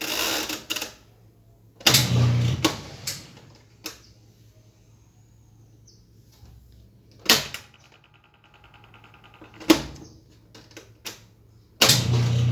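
Whirlpool washing machine being set to spin: several clicks and knocks, about a second of rapid ticking around the middle, and bursts of low motor hum, the loudest starting near the end. The drum does not spin up, which the owner takes for a motor that is sticking.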